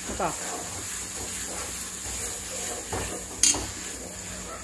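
A steel spoon stirs and scrapes chunks of cooked mutton around a stainless steel pressure cooker, with a single sharp clink of the spoon against the pot about three and a half seconds in.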